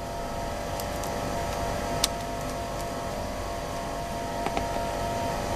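Steady background hum with a few short clicks of a screwdriver on the metal blade screws of an Andis Master clipper, the sharpest about two seconds in.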